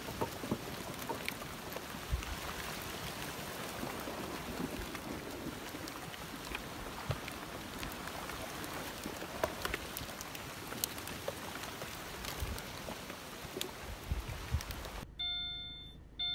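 Debris flow of logs, branches and muddy water moving down a channel: a steady crackle of many small wooden knocks over a wash of water noise. About a second before the end it gives way to a repeating electronic chime, about once a second.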